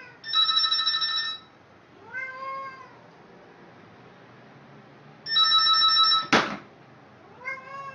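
A telephone ringing in two bursts of about a second each, the second one ending in a sharp click. After each ring a cat answers with a meow.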